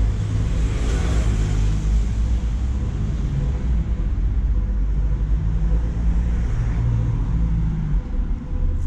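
Street traffic: a motor vehicle's engine running close by, with a swell of passing-vehicle noise about a second in.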